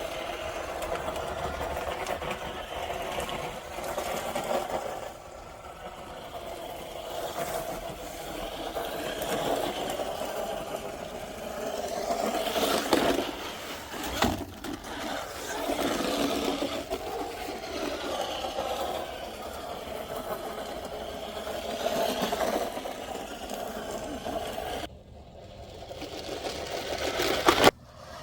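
Electric motor of a 1:10 RC short-course truck whining as it drives, its pitch rising and falling with the throttle.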